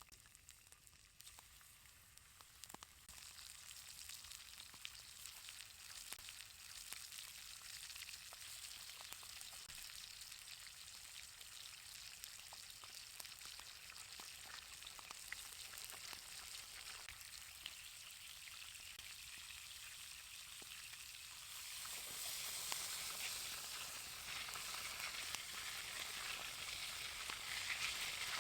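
Steak sizzling as it fries in a pan over a campfire: a steady hiss dotted with small crackles, growing louder and stepping up about three-quarters of the way through as the pan gets hotter.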